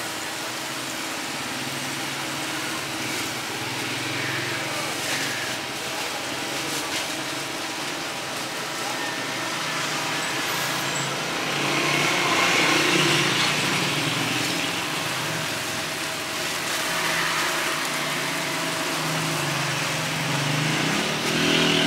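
Steady street noise of passing vehicle traffic, with indistinct voices now and then.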